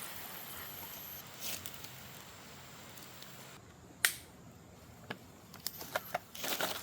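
Faint steady background hiss with scattered light clicks and rustles: one sharp click about four seconds in, then a quick run of small clicks near the end.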